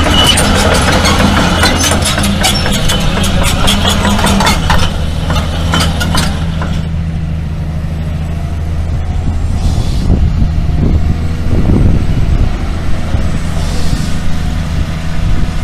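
Heavy diesel engine running steadily, with a dense rattling clatter over it for about the first six seconds.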